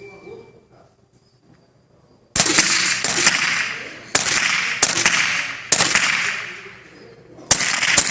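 .22 rifle firing seven shots at uneven intervals, starting about two seconds in, each sharp crack followed by a long echoing tail; the last two come close together near the end.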